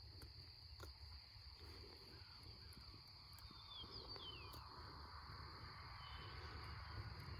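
Near silence: faint outdoor ambience with a steady high insect hum and a few brief bird chirps about four seconds in.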